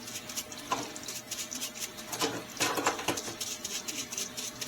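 Irregular scratching and light clicking of a hand tool scrubbing and scraping brake-cleaner-softened paint off a metal part, with a few duller knocks and a faint steady hum underneath.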